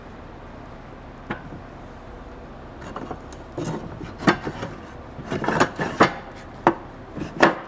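A stainless steel half-width disconnect cylinder being worked into a John Deere 1910 air cart meter housing: a series of metal clinks, knocks and scrapes, mostly in the second half.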